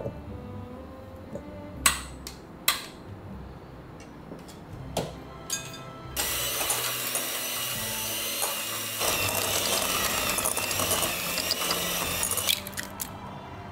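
Electric hand mixer running for about six seconds, its wire beaters churning cold cubed butter in a glass bowl, with a shift in its sound about halfway through before it stops. Before it starts, a few sharp clicks and knocks.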